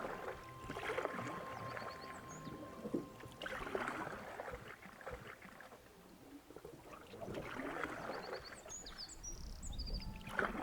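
Canoe paddle strokes swishing through the water, one about every three to four seconds, with a few short high bird chirps in between.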